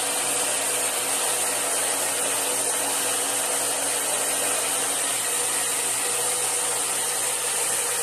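Handheld hair dryer running steadily while blow-drying long hair: a constant rush of blown air with a faint steady hum under it.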